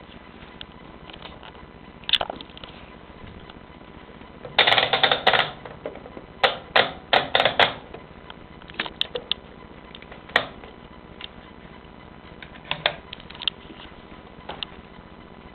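Gorenje washing machine running its extra-spin program, with irregular bursts of clicking and clatter over a steady low hum. The heaviest clatter comes in clusters about a third to halfway through.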